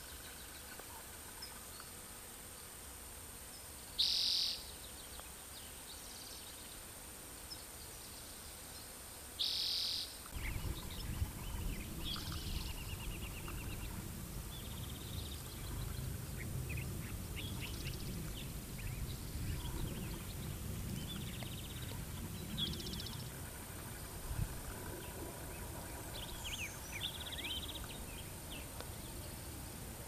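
Outdoor bird calls: two loud, short high calls about four and nine seconds in, then scattered chirps and short trills. A low rumble sets in about ten seconds in, and a faint steady high whine runs beneath.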